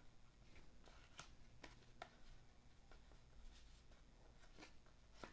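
Faint, irregular flicks and ticks of cardboard basketball trading cards being slid off a hand-held stack one at a time, over near-silent room tone.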